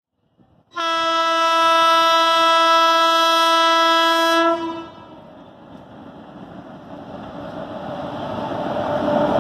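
Indian Railways WAP-7 electric locomotive's horn sounding one long steady blast of about four seconds. Then comes the rumble of the approaching passenger train, growing steadily louder.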